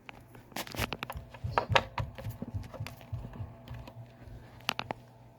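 Irregular clicks and light knocks of a handheld RadioShack PRO-136 scanner being handled as its antenna is plugged in.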